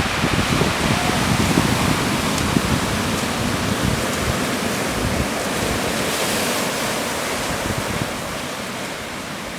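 Pacific Ocean surf washing onto a beach, a steady rush with a low rumble, and gusts of wind on the microphone. The rumble eases a little near the end.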